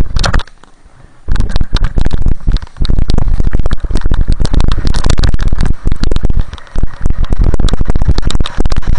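Wind buffeting and rumbling over an action camera's microphone while riding fast down a snowy slope, mixed with the scrape of sliding over snow; loud and distorted. A short burst right at the start, a brief lull, then it sets in about a second in and runs on with only brief dips.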